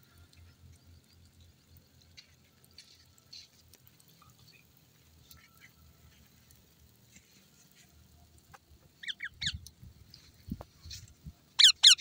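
Indian ringneck parakeet giving short, sharp screeching calls: a quick burst of them about nine seconds in, and a louder burst near the end.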